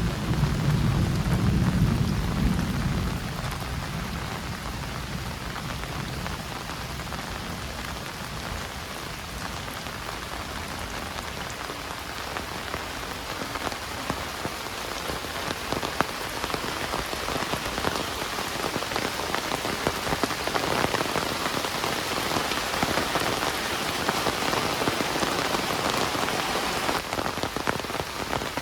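Heavy rain falling steadily. A low rumble of thunder dies away in the first few seconds, and the rain grows a little louder about halfway through.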